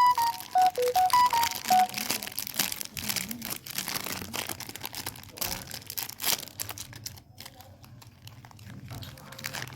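A bag of Oreo-flavoured Lay's potato chips crinkling and rustling as it is handled, in a dense crackle that thins out over the last few seconds. A quick run of short melodic notes plays over it in the first two seconds.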